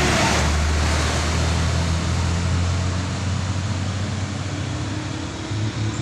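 Heavy truck passing close by: engine running and tyre and road noise, loudest at first and fading gradually as it moves away.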